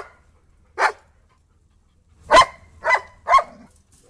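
A dog barking: a single bark about a second in, then three barks in quick succession, about half a second apart, past the halfway point.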